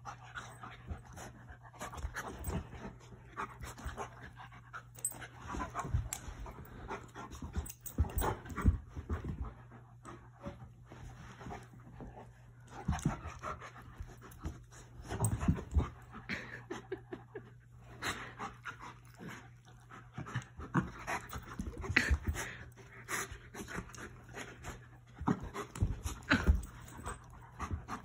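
An Alaskan Malamute and a Newfoundland puppy play-wrestling: irregular bouts of panting and scuffling, a steady low hum underneath.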